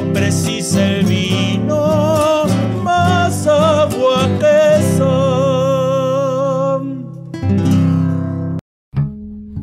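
Two classical guitars playing while a man sings, holding his last long notes with vibrato. The song ends about seven seconds in with a final strummed chord that rings on, then a brief moment of silence.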